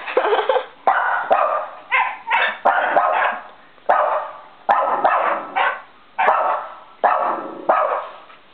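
An Eskimo-poodle mix dog barking over and over, about a dozen barks at roughly one a second, each starting sharply and trailing off.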